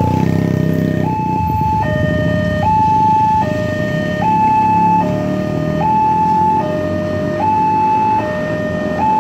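Railroad level-crossing warning alarm sounding its two-tone signal, switching between a higher and a lower tone a little under once a second, while the barriers close for an approaching train. Motorcycle engines run underneath.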